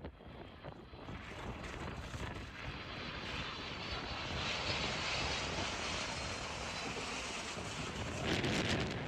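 Large jet airliner passing, its engine noise building over several seconds, holding steady and growing loudest near the end.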